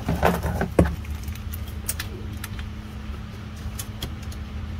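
Ratchet, extension and socket clicking and clanking on a transmission plug as it is tightened down, with the sharpest metallic click just under a second in. A steady low hum runs underneath.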